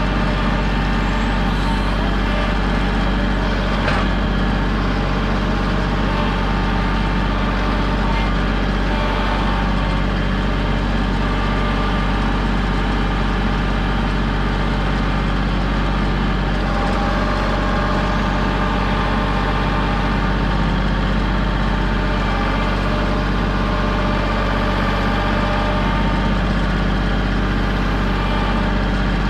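Kubota compact tractor's diesel engine running steadily close by, with one brief clunk about four seconds in.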